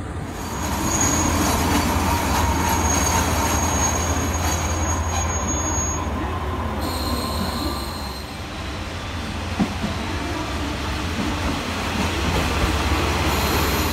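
Diesel railcars at a station platform, first a JR Shikoku 2700 series and then a red KiHa 40-series car: a steady low engine rumble throughout, with thin high wheel squeal from the track. The sound jumps at a couple of cuts between clips.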